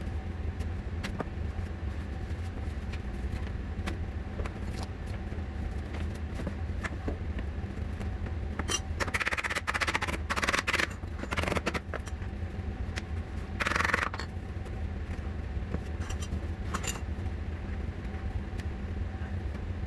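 Plastic shoe-rack tubes and connectors clicking and knocking as they are fitted together by hand, with a few bursts of rustling about halfway through, over a steady low hum.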